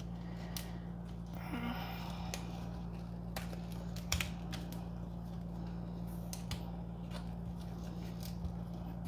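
Scattered faint clicks and rustles as printer cables are worked into a textile cable sleeve, over a steady low hum.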